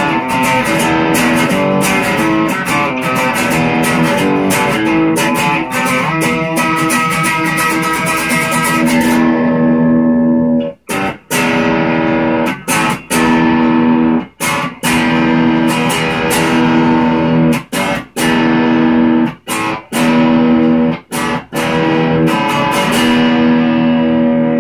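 Chapman ML3 Traditional electric guitar played through a Peavey Delta Blues 210 combo amp: quick strummed chords at first, then from about nine seconds in a darker, duller tone, with chords strummed and left to ring between short breaks.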